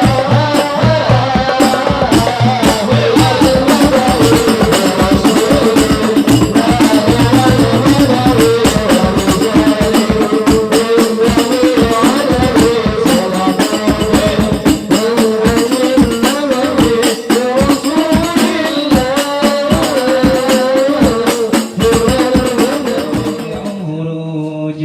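A devotional song sung to fast hand-drum percussion, the voices carrying a wavering melody over dense, rapid drum strokes. Near the end the drumming stops and a held, chanted recitation begins.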